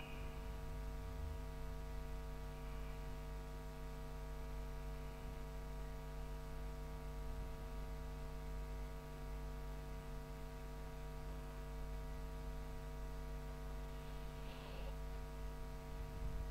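Steady low electrical mains hum with a faint hiss underneath, unchanging throughout: the noise floor of the recording setup.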